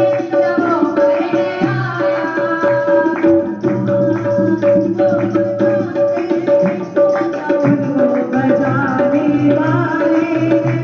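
Music from a Hindi Christian worship song: a busy percussion rhythm under a melody line over a held, pulsing tone.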